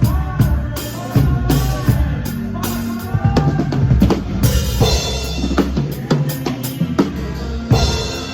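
Live band music led by a drum kit, with bass drum and snare hits over a moving bass line and a melody.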